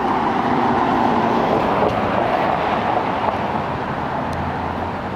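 Street traffic: a car driving past close by, its tyre and engine noise swelling in the first couple of seconds and then slowly fading, with a low steady hum of other traffic underneath.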